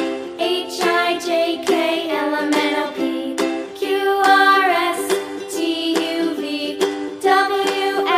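Cheerful background music with a plucked, ukulele-like strum and a singing melody line.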